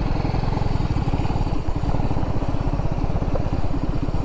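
Motorcycle engine running steadily while the bike is ridden, with rapid, even firing pulses.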